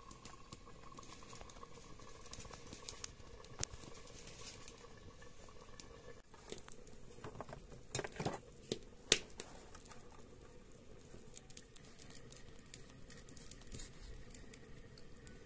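Light crackling of a wood fire under a covered cooking pot, with many small clicks. About six seconds in it gives way to handling sounds: a few sharper clicks and knocks around eight to nine seconds, then soft clicks of green chillies being cut on an upright floor-held blade.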